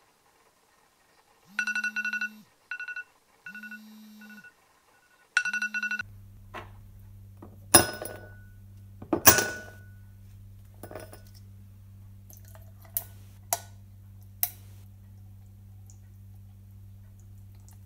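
A smartphone lying on a padded surface vibrates and plays a ringtone in four short bursts. Then ice cubes drop into an empty drinking glass with two sharp clinks, followed by a few lighter clicks over a steady low hum.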